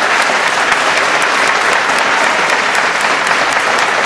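Theatre audience applauding, steady and dense.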